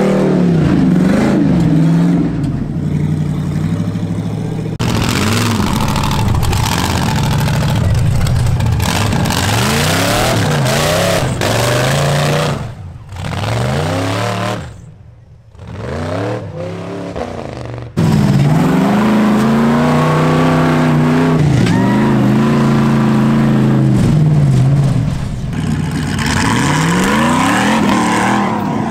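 Off-road rock-crawler engine revving again and again, its pitch climbing and falling with each throttle blip as the vehicle claws up a steep dirt climb. There is a brief lull about halfway through before the revving returns abruptly.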